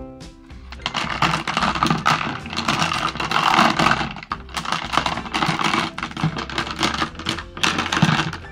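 Small tumbled crystals and stones clicking and clattering against each other and the plastic bowl as a hand stirs them in water, in a rapid, irregular run of clicks.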